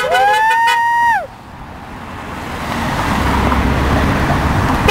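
Road traffic at an intersection: a car horn's steady honk ends within the first second, overlapped by a high 'woo!' cheer, then the sound of passing cars grows steadily louder.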